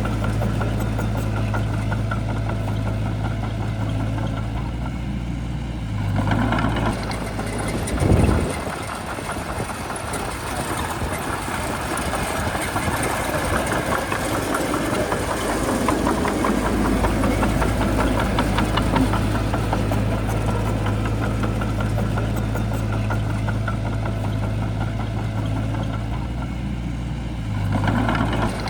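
Bulldozer's diesel engine running steadily, with a short loud thump about eight seconds in, after which the engine note turns rougher for a while before settling back.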